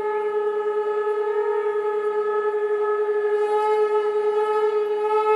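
Conch shells (shankh) blown together in one long, steady held note.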